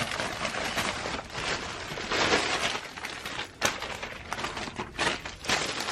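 Packaging crinkling and rustling as it is handled and pulled open, with many sharp crackles.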